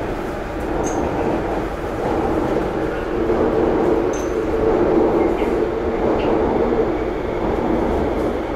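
MRT Blue Line metro train running, heard inside the passenger car: a steady rumble of wheels and traction motors with a humming tone. Two brief, faint high squeaks come about a second and about four seconds in.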